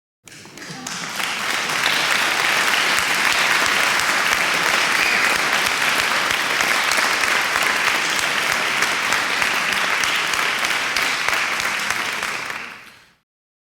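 Crowd applauding: many hands clapping, swelling quickly over the first couple of seconds, holding steady, then fading out abruptly near the end.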